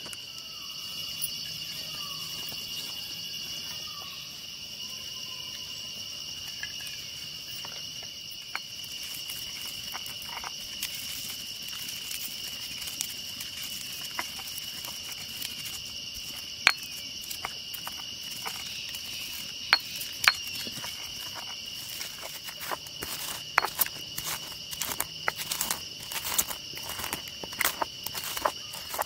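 Whole dry spices being crushed in a stone mortar with a pestle: sharp clicks and knocks, scattered at first, then coming thick and fast near the end. Under it all runs a steady high chirring of insects.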